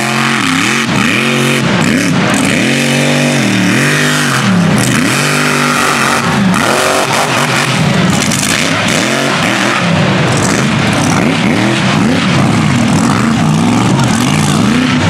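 Mega mud truck engine at race throttle, its pitch rising and falling again and again as the throttle is worked, with a steady noisy rush over it.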